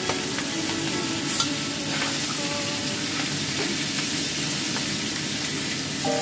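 Fish frying in hot oil in a steel wok, a steady sizzle, with an occasional scrape or tick of a spatula against the pan.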